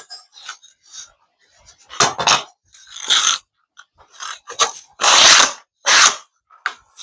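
A hand tool cutting thin slots for a syrup feeder, with irregular rasping strokes, each under a second and some in quick pairs.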